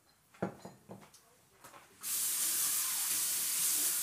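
A few light knocks, then about halfway through a kitchen tap is turned on and water runs steadily with a strong hiss.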